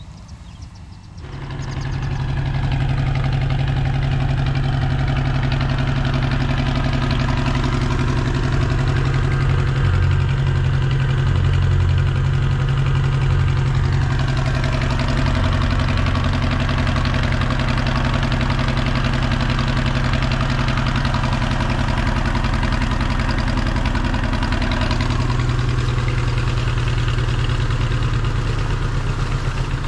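1975 Ford 300 inline-six engine driving a 6-inch Gorman-Rupp trash pump, coming in loud about a second in and then running steadily, its pitch shifting slightly a couple of times.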